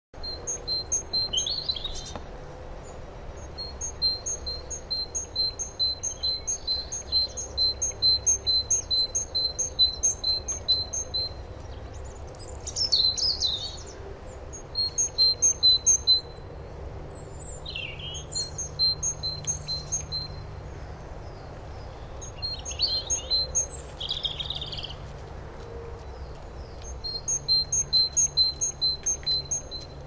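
Small songbirds calling: a long, evenly repeated series of short high chips, broken by other brief chirps and trills, then the repeated chips start again near the end.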